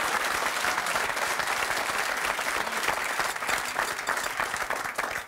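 Studio audience applauding, many hands clapping together at a steady level.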